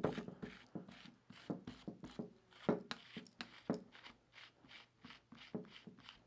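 Parts of a Slik carbon fiber tripod leg being fitted together by hand: an irregular run of small clicks and scrapes, a few a second.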